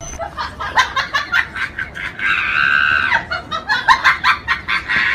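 Laughter in short, quick bursts, with one long high-pitched laughing cry about two seconds in.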